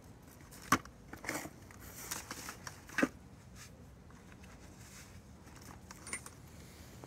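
Handling noise: a sharp click about a second in and another about three seconds in, with light rustling and small knocks between them.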